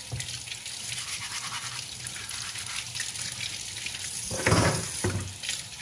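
Mussel shells being scrubbed clean by hand under a running kitchen faucet: a quick, scratchy scrubbing over the steady splash of tap water into a stainless steel sink. The water splashes louder for about a second around four and a half seconds in.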